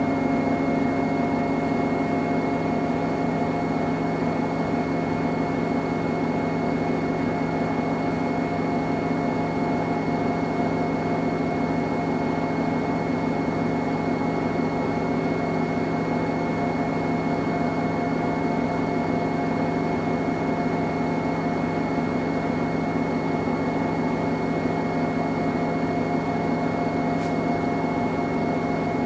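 Samsung Eco Bubble washing machine running a 40° cotton cycle: a steady, unbroken motor hum with a thin high tone above it.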